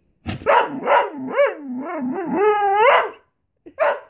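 A dog "talking": a run of wavering, howl-like yowls and short barks for about three seconds, ending in a longer call that rises in pitch, then one more short call near the end. It is her vocal begging for bacon.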